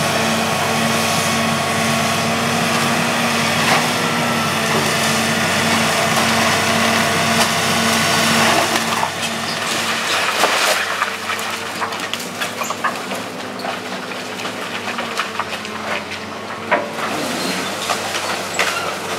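John Deere 200C LC hydraulic excavator's diesel engine running steadily under load. From about halfway through come irregular cracks, snaps and clatter as its bucket tears into the house's wood framing and siding.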